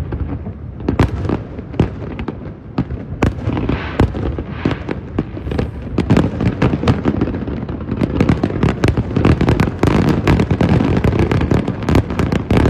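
Fireworks display: a rapid series of bangs and crackling pops, coming thicker and almost without pause from about halfway through.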